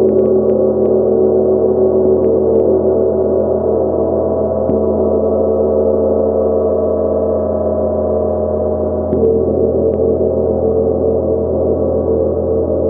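A 70 cm Nepalese gong ringing with a dense, sustained wash of overlapping tones, played with a soft felt mallet. The sound is renewed by fresh soft strokes about five seconds in and again about nine seconds in, where it swells a little.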